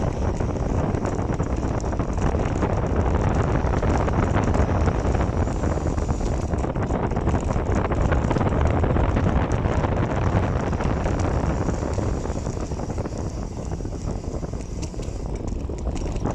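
Wind rushing over the microphone of a bicycle rider on the move: a steady rumble and hiss that eases a little near the end.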